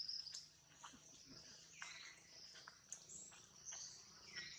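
Faint outdoor ambience: a steady high-pitched insect drone, crossed twice by a short high call that falls in pitch, with a few faint clicks.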